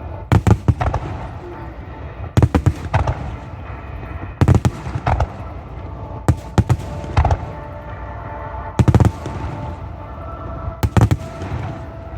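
Aerial fireworks shells bursting overhead in quick clusters of several sharp bangs, a cluster about every two seconds, each followed by a short echo.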